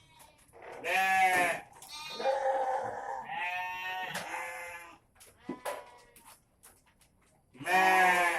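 Goats bleating: a loud, wavering bleat about a second in, more calls from about two to five seconds in, and another loud bleat near the end.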